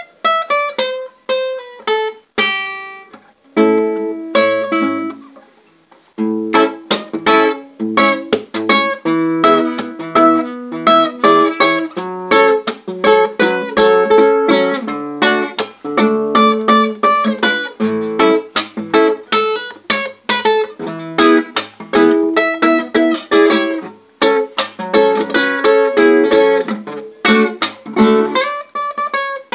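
Solo nylon-string classical guitar, plucked with the fingers: a few slow ringing notes and chords, a brief lull about five seconds in, then a steady, busy run of picked notes.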